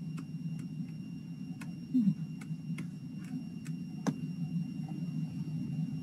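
Steady low hum on an open video-call audio line, with scattered faint clicks and a short low sound that falls in pitch about two seconds in.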